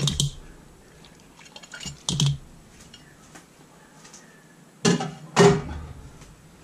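Raw quail being tipped from a plate into a bowl of oily herb marinade: a few short knocks and wet slaps of bird and dish, the loudest pair about five seconds in.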